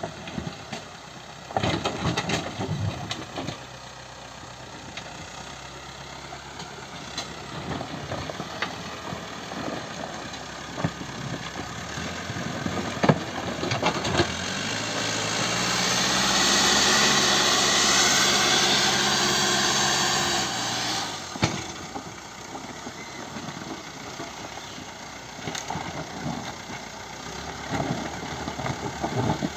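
Caterpillar 434E backhoe loader's diesel engine running at low revs with scattered knocks and clanks, then revving up for about six seconds around the middle before dropping back to a low run.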